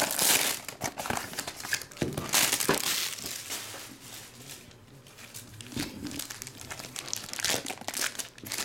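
Clear plastic shrink-wrap being torn off a trading-card box, then a black plastic card pack being squeezed and opened, all crinkling. It is loudest in the first three seconds, softer in the middle, and picks up again near the end.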